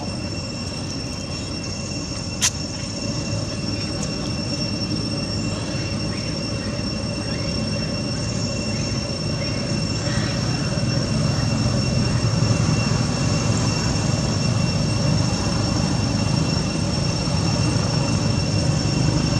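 Outdoor ambience: a steady high-pitched whine held on one pitch, with a low rumble that grows louder through the second half. One sharp click comes about two and a half seconds in.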